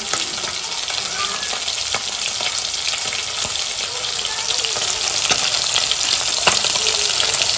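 Spice-coated fish pieces frying in hot oil in a wok: a steady sizzle with scattered crackles and pops.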